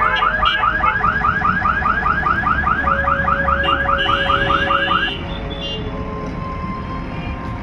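An electronic alarm warbling in fast rising chirps, about five a second, over the steady running of the JCB backhoe loader's diesel engine; the alarm stops about five seconds in.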